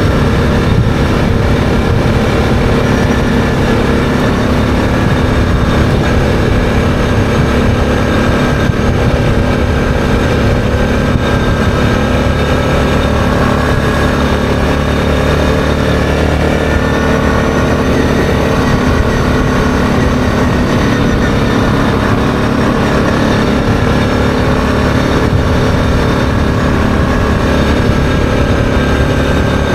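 ATV engine running steadily under way at a constant cruising speed, heard from on the machine itself.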